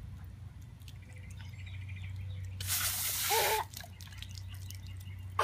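Water spraying from a garden hose in one burst about a second long near the middle, with a short high cry during it.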